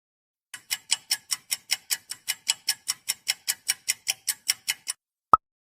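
Countdown-timer sound effect ticking evenly, about five ticks a second for some four seconds, then one short beep as time runs out.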